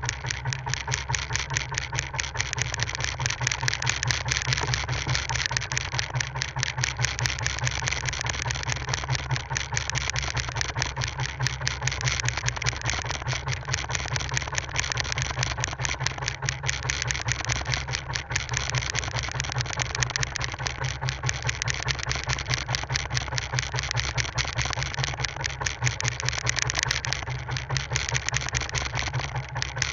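Fishing boat's engine running steadily with a fast, even beat of firing pulses.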